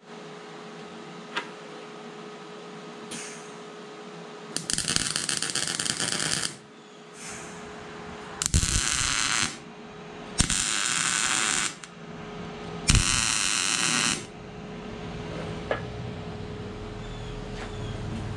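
MIG welder laying tack welds on a steel mower-deck bracket: four bursts of arc, each a second or two long, with a brief weaker one after the first, over a steady hum. These are fit-up tacks, placed before the part is welded out.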